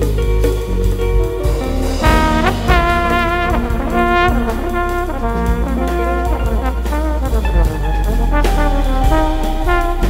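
Jazz trombone over a deep bass line: the trombone comes in about two seconds in, scooping up into its first note, then plays a phrase of short repeated notes, and takes up another phrase near the end.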